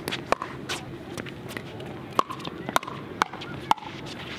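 Pickleball rally: sharp pops of paddles striking a hollow plastic pickleball, a few scattered at first and then about one every half second.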